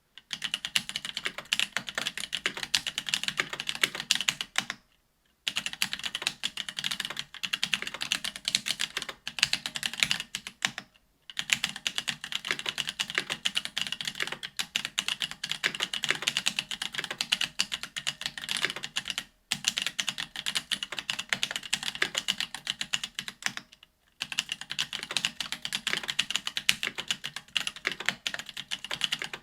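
Fast typing on a BOK AL.BOK custom mechanical keyboard with stock Ethereal Panda tactile 68 g switches: a dense, continuous run of key clacks. It stops briefly four times, about five, eleven, nineteen and twenty-four seconds in.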